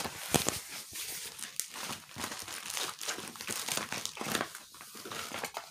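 Continuous crinkling and rustling of plastic and paper as a rolled diamond painting canvas is unrolled and its strip of plastic-bagged drills is handled.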